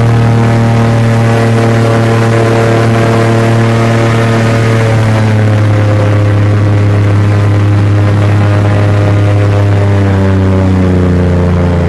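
V8 airboat engine and its air propeller running loud and steady under way, the pitch sliding down in the last couple of seconds as the engine slows.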